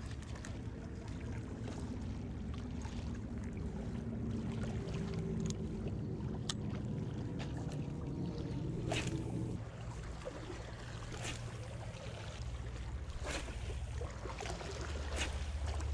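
Wind on the microphone and sea water washing against breakwater rocks. A steady low hum runs under it and cuts off abruptly about ten seconds in. After that come a few sharp clicks and knocks.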